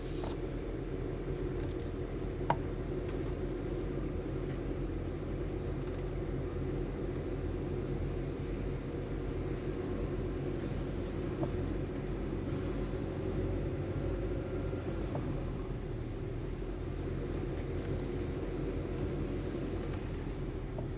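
Inside a car cabin while driving slowly: steady low engine and tyre rumble, with a single sharp click about two and a half seconds in.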